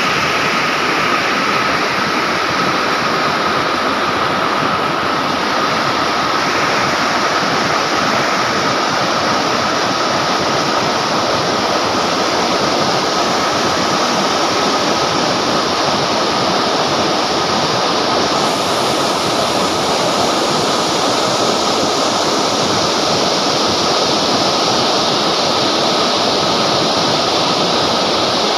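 River water rushing steadily over rocks: a loud, even rush.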